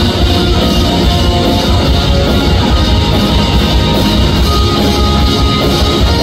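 Live pop-rock band playing an instrumental passage: electric guitar and keyboard over drums, loud and continuous.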